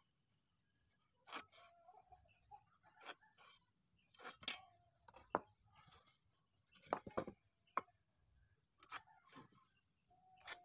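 Irregular light taps and knocks of a steel try square and ruler being set down and shifted on a wooden board while it is marked out. A faint, steady, high-pitched whine runs under them.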